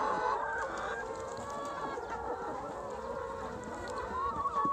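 A flock of laying hens in a deep-litter shed, many clucking and calling over one another in a steady chorus, with one drawn-out rising call near the end.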